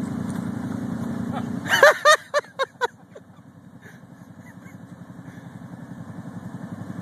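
Off-road vehicle engine idling with a steady low throb. About two seconds in it drops away and five quick, loud, short calls cut in. A quieter idle then slowly rises.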